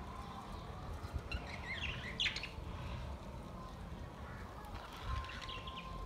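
A flock of budgerigars chirping and warbling, with a burst of quick chirps about a second and a half in and another near the end, over a low background rumble.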